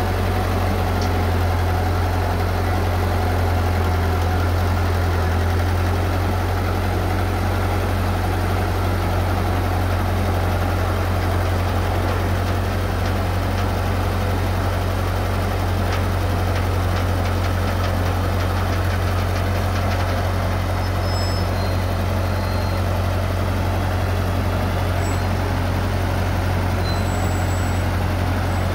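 Ferguson TO35 tractor's four-cylinder gasoline engine running steadily with an even low hum.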